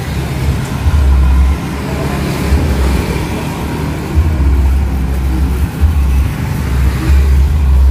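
Road traffic passing close by: a low rumble that swells and drops back several times.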